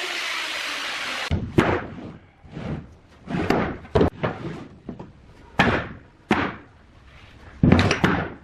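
Irregular knocks and thuds of wood in a woodworking shop, about seven of them spread over several seconds. A steady machine noise runs first and cuts off just over a second in.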